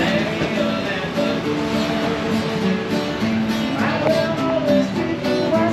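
Background music: a melody of held notes over a steady accompaniment.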